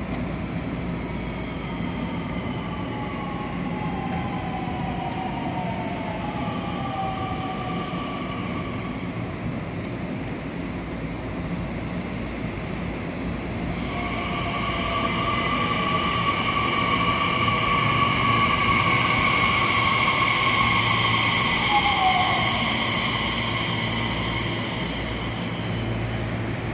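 Nishitetsu electric train at the platform: its motor whine glides down in pitch as it slows, and about halfway through a louder steady high whine sets in over a low rumble.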